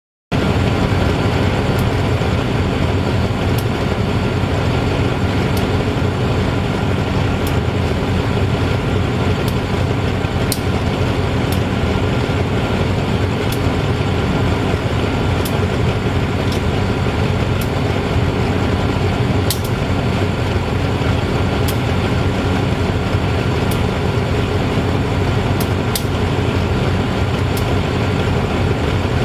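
State Railway of Thailand GEA-class GE CM22-7i diesel-electric locomotive idling steadily while standing, with light sharp ticks every second or two.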